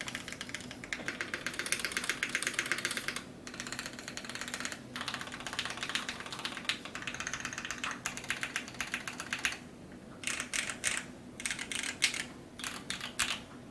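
Fast typing on a custom 60% mechanical keyboard, a Keycult No. 1/60 with lubed and filmed Milky Top Tealios linear switches on a polycarbonate plate and GMK ABS keycaps. It is a dense run of keystrokes with brief pauses, breaking into slower, scattered bursts in the last few seconds.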